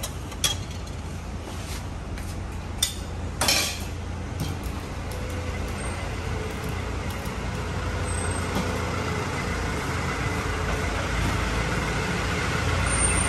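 A spoon clinking sharply a couple of times in a stainless-steel mug, then a brief louder burst of noise about three and a half seconds in, over a steady low rumble of road traffic that slowly grows louder.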